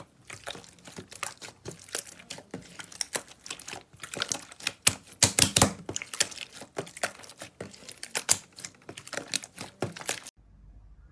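Slime being squeezed and pressed by hand, giving a dense, irregular run of sharp crackles and clicks. It stops abruptly near the end, leaving only a faint low hum.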